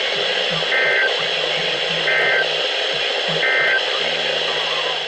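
Steady static hiss from a NOAA Weather Radio receiver. Three short, raspy two-tone digital data bursts come a little over a second apart: the EAS/SAME end-of-message code, sent three times to mark the end of the broadcast alert.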